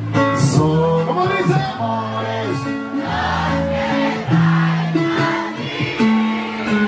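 Live band music with singing: held bass notes under voices and instruments, with no break.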